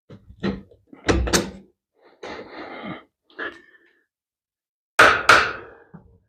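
Tools and metal parts being handled during a motorcycle teardown: a run of knocks and clunks, a scraping stretch in the middle, then two loud sharp knocks close together near the end.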